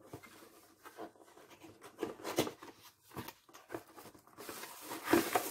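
A cardboard product box being opened by hand: irregular scrapes, taps and flap clicks, then a louder rustle of packaging for about the last second.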